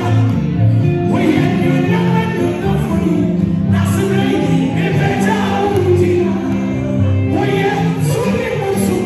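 Gospel music performed through a sound system: a woman singing into a microphone over amplified accompaniment with a steady bass line.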